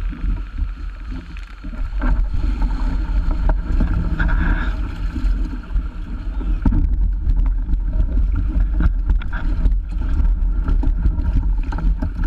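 Kayak running down a shallow, rocky creek: a steady rush of water with a heavy low rumble of wind buffeting the kayak-mounted camera's microphone, and scattered short knocks throughout.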